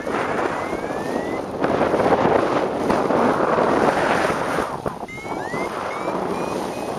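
Wind gusting hard across the microphone, a dense rushing buffet that swells and eases. Faint thin whistling tones rise in pitch twice over it.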